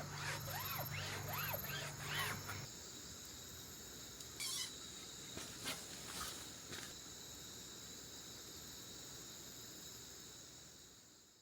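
Crickets trilling steadily. In the first couple of seconds a low hum and quick rising-and-falling chirps sit under them, then a few sharp clicks, and the sound fades out near the end.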